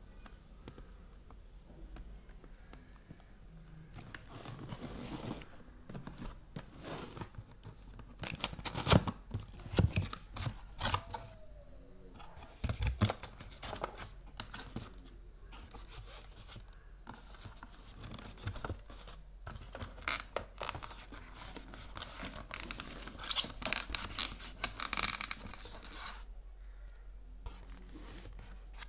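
A cardboard box and its packing being handled while a new UPS is unboxed: irregular rustling and scuffing of cardboard in quick bursts, starting a few seconds in and heaviest about a third of the way through and again near the end.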